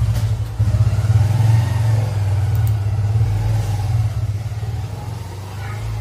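A steady low hum with faint, wavering higher tones above it.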